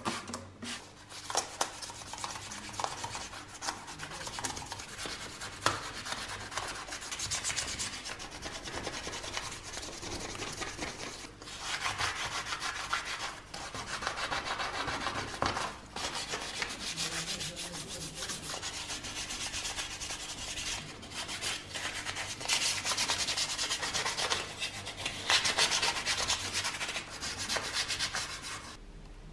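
Hand wet-sanding of painted sheet-steel toy parts with wet-and-dry sandpaper: a gritty rubbing in rapid back-and-forth strokes that goes on in spells, louder in some stretches than others.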